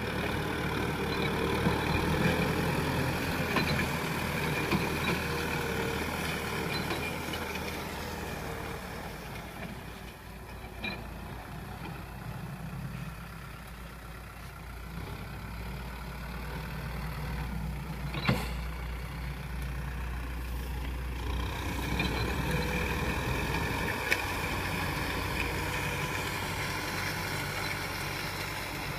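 Kubota M6040 tractor's diesel engine running steadily as it pulls a disc harrow through the soil. It fades and grows again as the tractor moves off and comes back, with a single sharp knock about eighteen seconds in.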